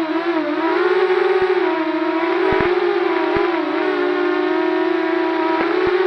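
A steady whine from a running motor, holding one pitch with slight wavering up and down, with a few faint ticks.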